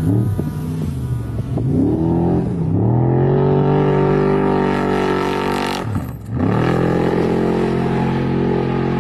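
Off-road race truck's engine revving hard at speed, its pitch dipping and climbing again several times, then holding high. About six seconds in the revs drop sharply as the throttle lifts, then climb straight back up.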